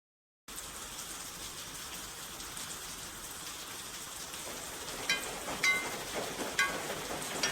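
A steady hiss like rain starts suddenly about half a second in. From about five seconds in it is joined by four short high-pitched squeaks or chirps, spaced unevenly about a second apart.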